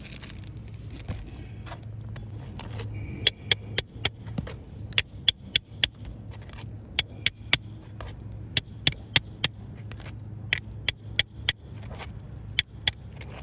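A steel claw hammer tapping a flat pry bar to drive it under an asphalt three-tab shingle: sharp metallic clinks in quick runs of three to five, about three a second, with short pauses between runs. Before the tapping starts, about three seconds in, there is a low scraping of the bar against the shingles.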